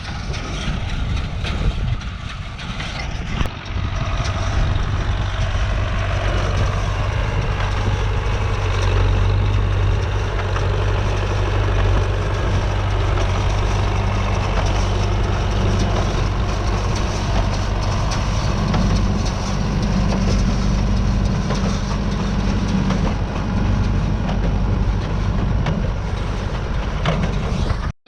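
Tractor engine running steadily under load as it pulls a New Holland 68 square baler working through the hay rows.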